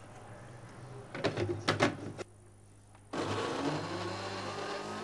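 A few short knocks of handling, then an electric kitchen blender switches on suddenly about three seconds in and runs steadily with a low hum, blending a jar of chopped tomatoes, red pepper and onion.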